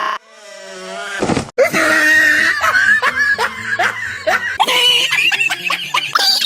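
Processed, pitch-shifted meme laughter: a rising swell over the first second and a half, then rapid repeated high laughing bursts.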